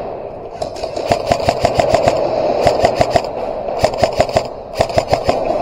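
Airsoft electric guns firing on full auto in several short bursts of about ten shots a second, over a steady hum.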